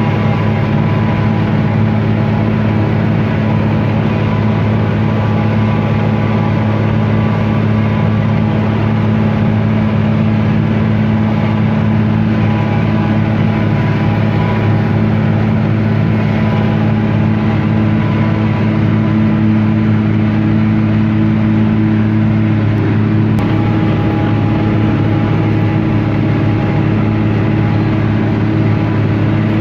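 John Deere 4250 tractor's six-cylinder diesel running steadily under load while pulling and powering a John Deere 3970 pull-type forage harvester chopping rye. The engine note holds even, shifting slightly about 23 seconds in.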